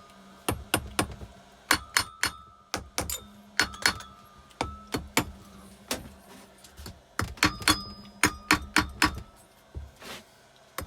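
Metal hand tools clicking and clinking on a Keeway TX125 motorcycle engine as its crankshaft is worked back and forth with a spanner to bring the piston up to its timing mark. The sharp clicks come in irregular clusters, some briefly ringing, over a steady low hum.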